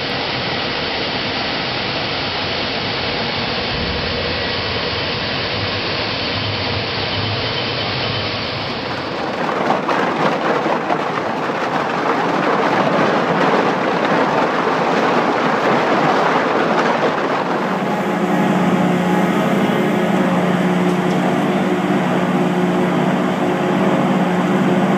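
Recycling plant machinery running in three stretches. First a shredder working through plastic film with a steady grinding noise; from about 8.5 s a louder, rougher crackle of a bale break station tearing baled plastics apart; from about 17.5 s a steady low hum from an eddy current separator's drum and conveyor.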